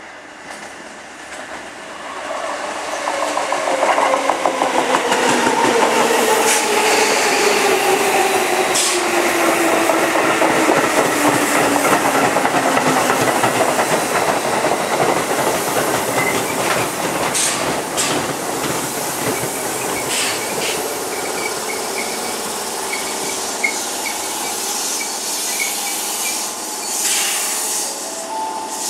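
Hokuso Railway 9000 series electric train pulling into the station: the motor whine falls steadily in pitch as it brakes under loud wheel noise on the rails. Once it has slowed, several short bursts of air hiss come from the train.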